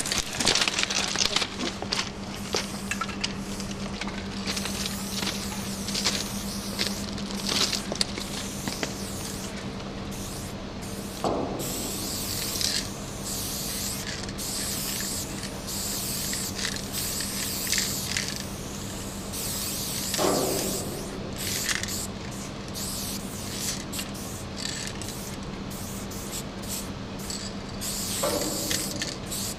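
Aerosol spray-paint cans hissing in repeated bursts of a second or so as graffiti tags are painted, over a steady low hum.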